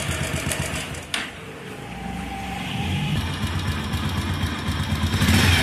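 Motorcycle engine running with a tapping knock from the cylinder head. The mechanic suspects a slack cam chain and checks the cam chain tensioner first. A click about a second in is followed by a quieter stretch, then the engine builds back up and runs on.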